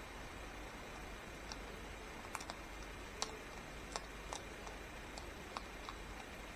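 Hedgehog crunching dry pet-food kibble: a dozen or so sharp, irregular crunching clicks over a steady hiss.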